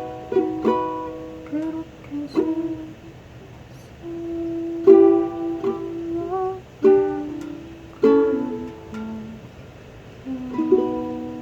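Ukulele played slowly, single plucked notes and chords struck one at a time and left to ring out, with a few notes slid up in pitch.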